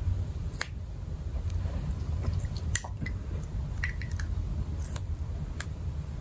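A few faint clicks and taps from handling a Chanel retractable dual-tip eyeshadow brush as its two halves are pulled apart and pushed shut, over a steady low hum.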